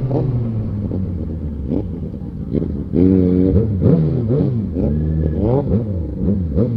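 Two inline-four motorcycle engines, a Yamaha XJ6 on a WR exhaust and a straight-piped Suzuki Bandit, idling and blipping their throttles in repeated quick revs that rise and fall, with a few sharp cracks from the exhaust.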